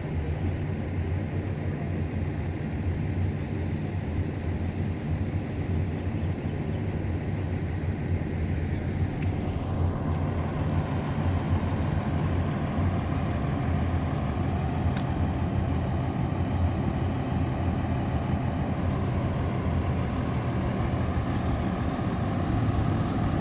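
Fire engine's diesel engine idling steadily, a low even hum that grows a little louder and fuller from about ten seconds in.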